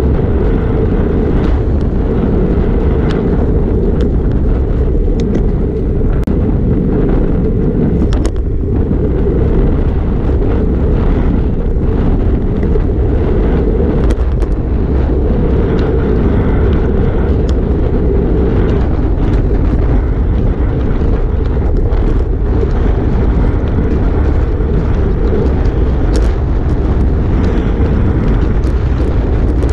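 Steady wind buffeting on a handlebar-mounted GoPro's microphone as a road bike rides at speed, with scattered sharp clicks and knocks from the road through the bike.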